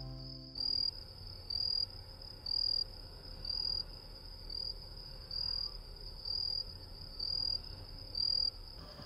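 A cricket chirping: short, high chirps at a steady pace of about one a second.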